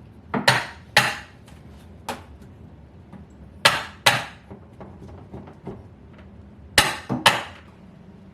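Hammer blows on a wooden kitchen cabinet being knocked loose during demolition: about eight sharp strikes, mostly in quick pairs a couple of seconds apart, each with a brief ring.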